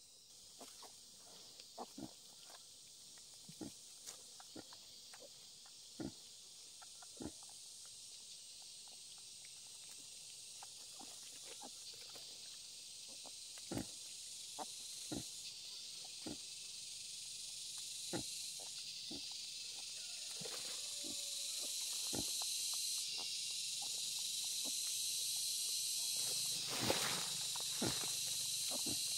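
Wild boar sow and newborn piglets at the teat: short grunts and squeaks scattered irregularly, about one a second, with a brief pitched squeal about two-thirds of the way in. Under them runs a steady high insect hiss that grows louder.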